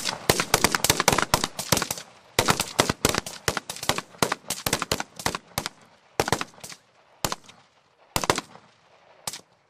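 Several rifles firing rapid shots on a range, many overlapping in quick succession at first, then thinning to scattered single shots and a last one near the end.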